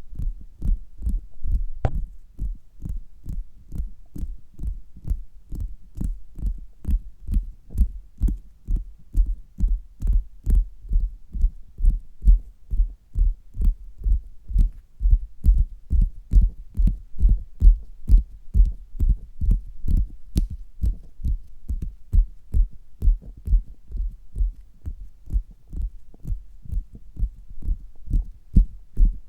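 Fingers tapping on a belly, heard through a stethoscope: a steady run of dull, muffled thumps, about three a second.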